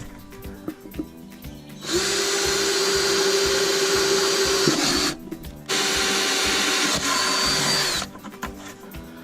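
Power drill running steadily as it bores holes in an old bucket, in two runs: about three seconds, a short pause, then about two more seconds.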